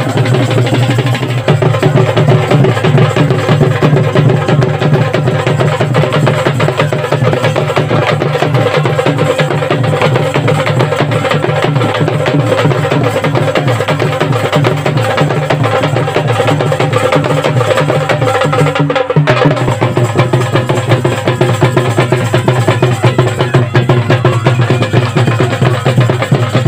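Traditional folk drumming: large double-headed drums beaten in a fast, continuous rhythm for a dance, with a brief break about two-thirds of the way through.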